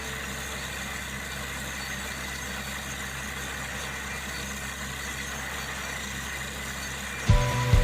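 Borewell drilling rig's engine running steadily with a low hum. About seven seconds in, loud regular knocks begin, about two to three a second.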